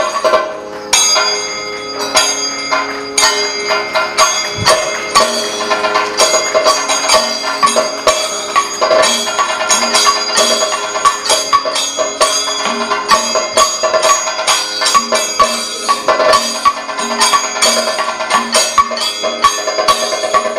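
Kathakali percussion accompaniment: fast, dense drum strokes under steadily ringing bell-metal cymbals.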